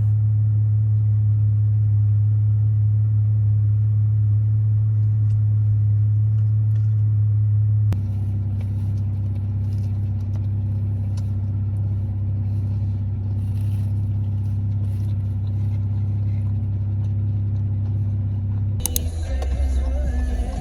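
Steady low vehicle drone of engine and road noise, changing abruptly twice as the footage cuts.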